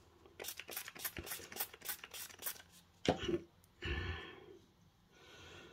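Hands handling nail supplies and a cotton pad: a quick run of short scratchy strokes, about six a second for two seconds, then a single knock and a brief rustle.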